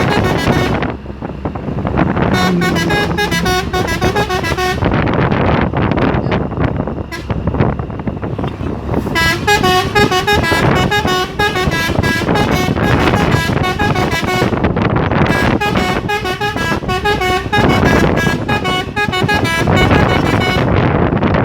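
Three-trumpet telolet horn on a Hino truck playing melodic phrases of quickly stepping tones in several runs, over the steady engine and road noise of the moving truck.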